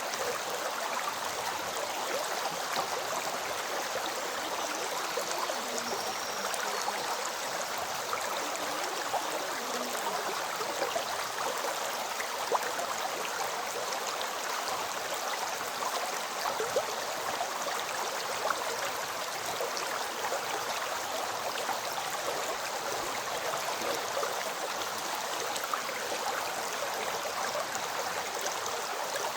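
A river flowing: a steady rush of water with fine splashing and trickling detail throughout.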